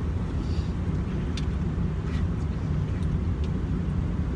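Passenger train running, heard from inside the carriage: a steady low rumble, with a few light clicks.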